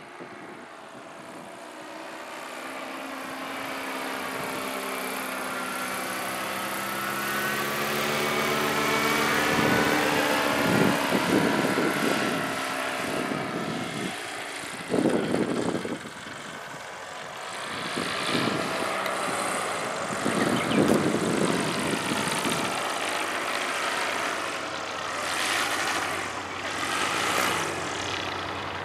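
Paramotor engine and propeller droning as the powered paraglider flies past overhead, growing louder over the first several seconds with its pitch sliding as it goes by. Several louder rushing bursts come in the second half.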